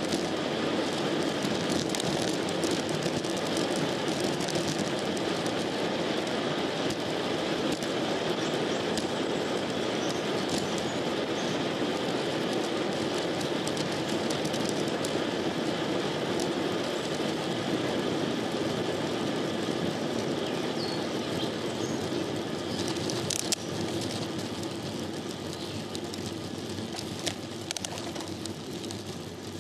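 Road bike rolling on pavement: a steady rush of tyre and wind noise picked up by a handlebar-mounted camera, easing off slightly near the end. A couple of sharp clicks cut through it about two-thirds of the way in and again near the end.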